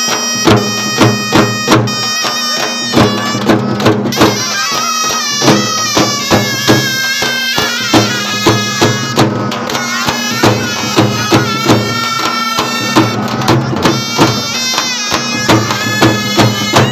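Street brass band playing a melody on trumpets and other horns over a steady beat of about two strokes a second.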